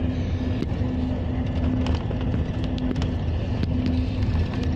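Coach engine and road noise heard from inside the moving bus: a steady low rumble with a constant hum, and a few sharp clicks scattered through.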